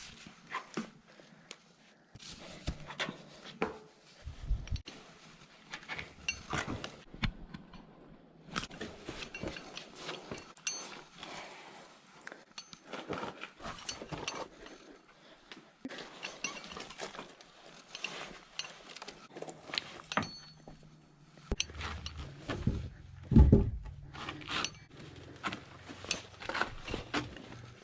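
Irregular light clinks, taps and knocks. A low steady hum comes in about three-quarters of the way through, and there is one louder thump shortly after.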